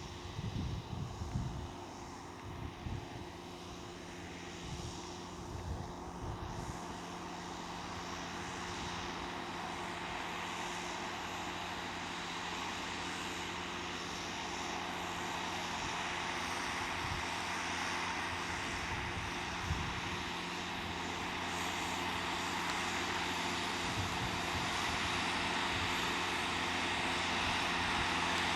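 Farm tractor engine running steadily while working a field, growing gradually louder as it draws nearer, with some low thumps in the first few seconds.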